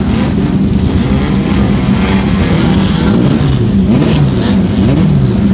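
Several vintage Lotus single-seater racing car engines running together at a fast idle. From about halfway, the revs are blipped up and down, with overlapping rising and falling engine notes.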